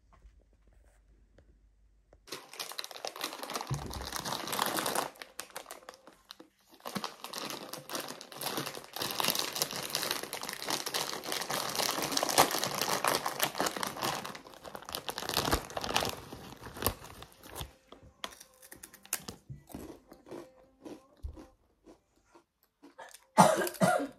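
Clear plastic snack bag of fish crackers crinkling and tearing as it is handled and opened, in two long stretches, then a few scattered crackles. Near the end, a short loud crunch as a cracker is bitten.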